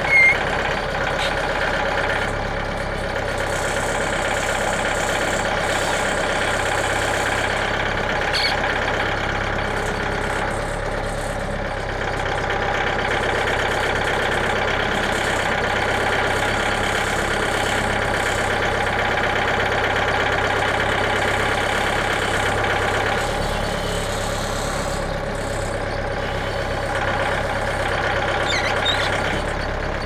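Mahindra compact diesel tractor engine running as its front-loader pallet forks push a heavy maple log up wooden ramps onto a sawmill. The engine note stays steady, with a brief loud thump just after the start.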